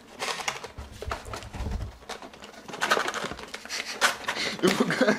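A small cardboard box being worked open by hand: irregular scraping and rubbing of cardboard flaps, with a low handling rumble about a second in.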